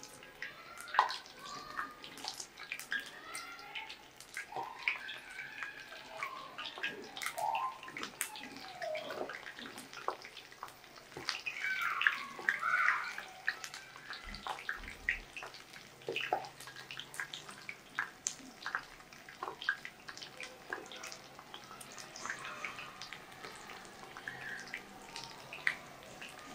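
Masala-coated ivy gourd pieces deep-frying in hot oil in a stainless steel kadai: steady bubbling and sizzling, dotted with many small crackling pops as more pieces are dropped in.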